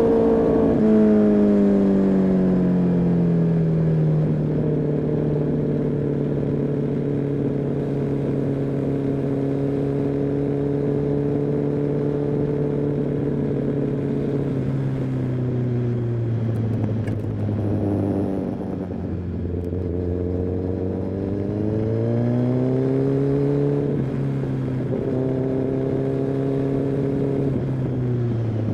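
Kawasaki ZX-10R inline-four engine and exhaust under riding load. The engine note drops as the bike slows at the start, holds steady while cruising, sinks again, rises as it accelerates about two-thirds of the way through, holds, then drops off near the end.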